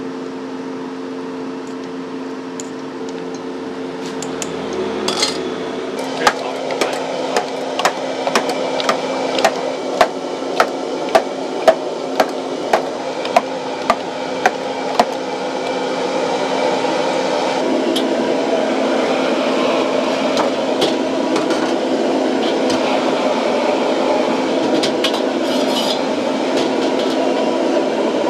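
Metal utensil beating eggs in a small stainless steel pot, striking the pot's side in sharp, regular clicks about twice a second. Later a steady rushing noise from a gas wok burner takes over.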